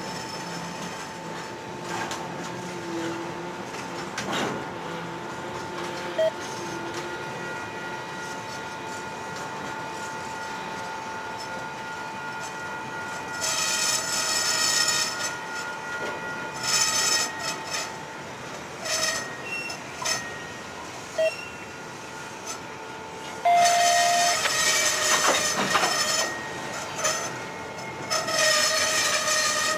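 Freight cars of a work train rolling slowly in reverse under locomotive shove, with a low rolling rumble. From about halfway, shrill wheel squeal comes and goes in several bursts.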